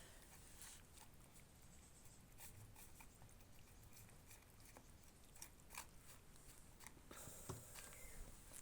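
Near silence: faint room tone with scattered soft clicks and taps, a little more frequent near the end.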